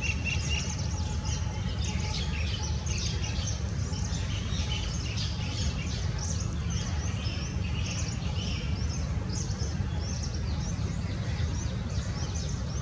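Many small birds chirping, short high chirps overlapping continuously, over a steady low background rumble.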